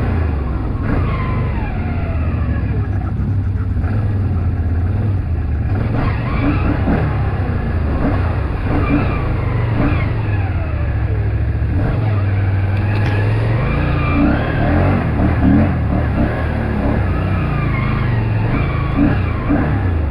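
ATV engine running under load, its pitch rising and falling repeatedly as the throttle is worked.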